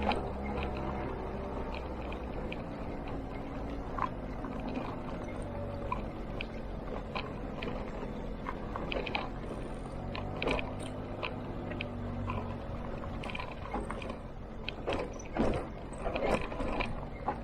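Motor scooter engine running steadily, with scattered knocks and rattles throughout and a cluster of louder ones near the end.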